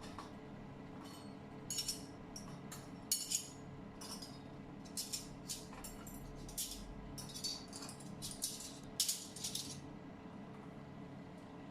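Kitchen handling sounds: a string of short, light rattles and rustles, irregularly spaced, over a faint steady hum.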